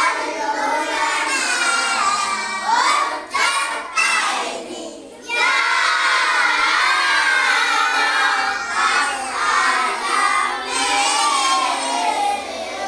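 A group of children singing together in unison, loud and continuous, with a brief pause about five seconds in.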